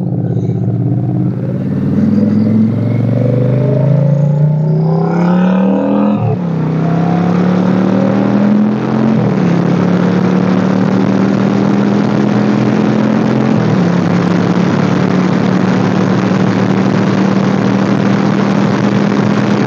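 Motorcycle engine accelerating away from a stop, its pitch climbing and then dropping at upshifts about six and nine seconds in, then settling into a steady cruise. Wind noise rushes over the microphone as speed builds.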